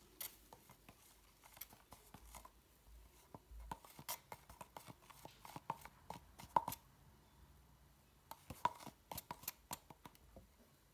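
Wooden stir stick scraping and knocking against the inside of a metal paint tin while stirring decorative paint, in faint, irregular clicks and taps, some with a brief ring from the tin.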